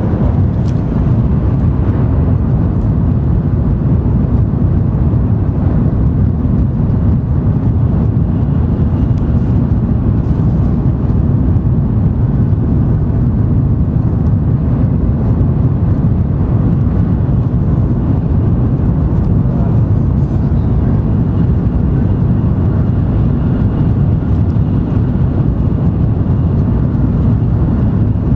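Steady low rumble inside the passenger cabin of an N700 series Shinkansen running at speed.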